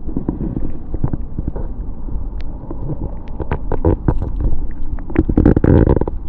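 Close handling noise as a lure is worked out of a snakehead's mouth by hand: low rumbling with a dense run of small clicks and knocks, busiest and loudest about five to six seconds in.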